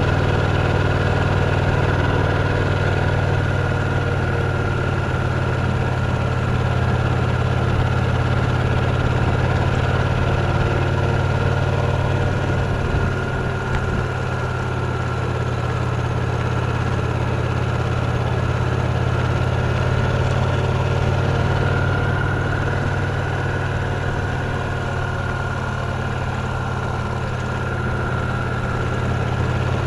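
Victory Cross Roads Classic LE's 1700 cc V-twin engine running steadily while the motorcycle cruises.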